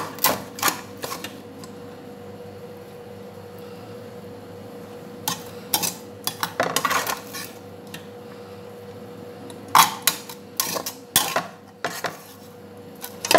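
A metal serving utensil clinking and scraping against a stainless steel pot and pan as cooked rice is scooped across, in three bursts of clanks with quieter gaps between.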